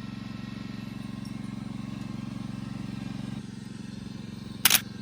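A small engine running steadily at an even speed, with one sharp click near the end.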